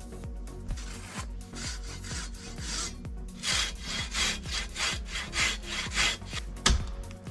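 Hand saw cutting through a wooden log in quick back-and-forth strokes, about three a second, that start about a second and a half in, followed by a single sharp knock near the end.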